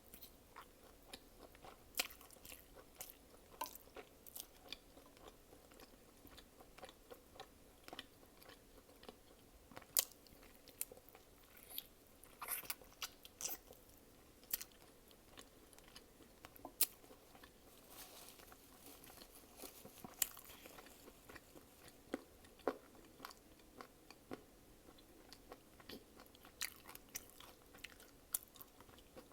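Close-miked chewing and biting: a person eating, with irregular sharp mouth clicks and smacks several times a second.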